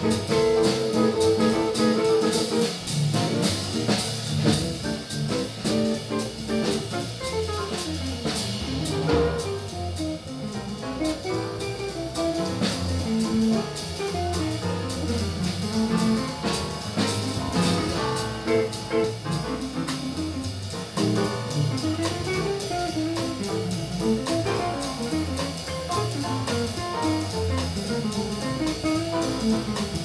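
Live small-group jazz: an archtop electric guitar plays a solo in running single-note lines over double bass, piano and a drum kit with cymbals.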